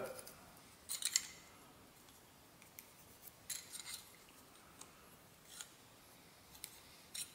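Hand snips cutting thin flattened copper sheet: a scattering of faint, short snips and clicks at irregular intervals.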